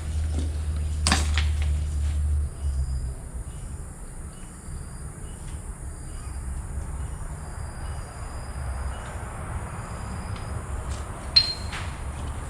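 Low rumble and scattered knocks, typical of walking and handling a camera on rubble, with a single sharp metallic clink near the end that rings briefly.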